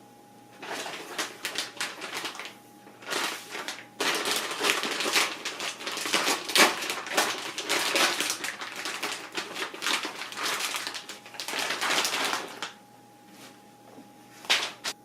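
Plastic packaging crinkling and crackling in irregular bursts as a raw whole chicken is unwrapped. The sound is densest in the middle and comes again in a short burst near the end.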